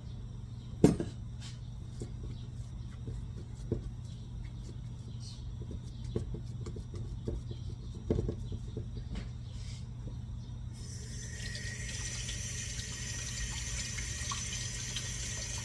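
Scattered knocks and clunks from handling the packed mold, the loudest about a second in, then a kitchen tap running steadily for the last third, all over a constant low hum.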